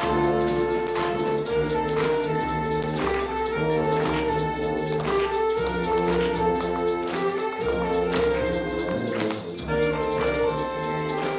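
A middle school band playing live: saxophones, trumpets and tuba sustaining chords over a steady drum beat.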